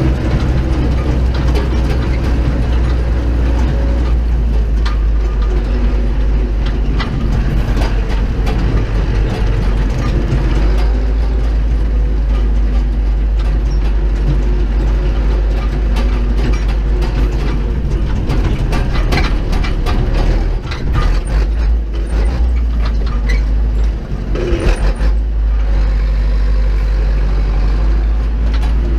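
Zetor 7745 tractor's four-cylinder diesel engine running as it drives, heard from inside the cab, with the cab and its fittings rattling. The engine sound dips briefly twice, about two-thirds of the way through.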